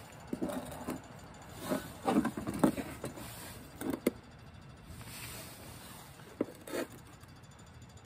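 Hands handling a glass wine bottle and a stainless-steel sierra cup on a table: several clusters of short knocks and scrapes with a couple of sharp metallic clicks.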